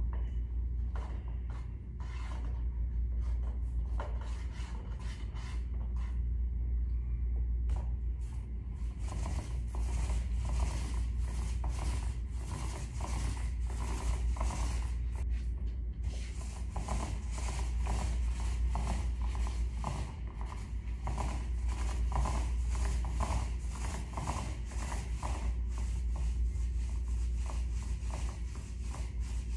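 Paint roller rubbing over a wall in quick, repeated strokes, over a steady low hum.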